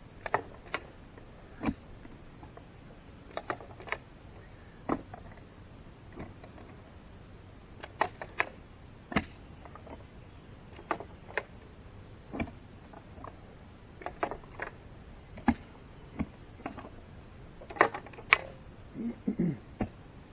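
A digging tool striking hard, rocky soil in sharp, irregular thuds, about one a second, while a post hole is dug.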